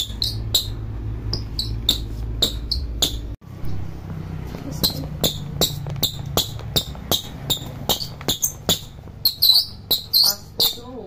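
Rubber soles of new Nike LeBron 20 basketball shoes squeaking against a tile floor in a squeak test: short, sharp high chirps about three a second, coming thicker and louder near the end.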